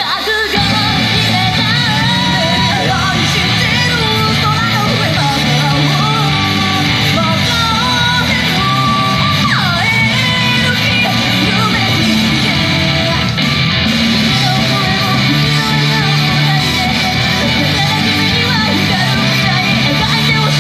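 Live rock-style idol-group song with guitar, sung by the group, with shouted parts.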